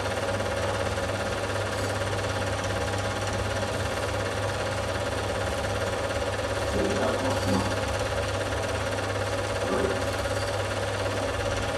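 Film projector running: a steady rapid mechanical clatter over a constant low hum.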